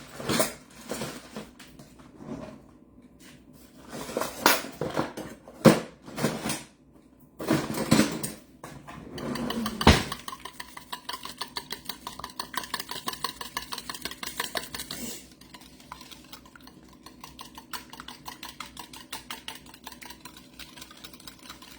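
Two eggs being cracked and beaten in a bowl: a few sharp knocks of eggs and dishes against the bowl, then from about ten seconds in a fast, even clicking of the beating utensil against the bowl, growing lighter a few seconds later.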